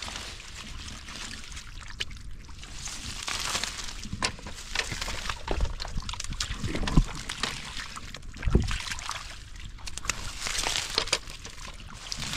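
Hands groping through shallow muddy water, splashing and sloshing, with a few louder splashes about halfway through and again near two-thirds of the way.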